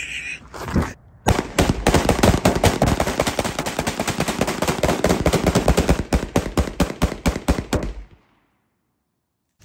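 AR-15-style rifles firing: a single shot just under a second in, then a rapid string of shots, several a second for about seven seconds, that cuts off suddenly.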